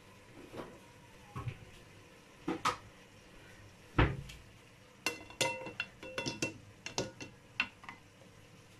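A stainless steel pot and a mesh sieve being handled, knocking and clinking against each other. There are a few scattered knocks, a heavier knock about four seconds in, then a quick run of ringing metal clinks.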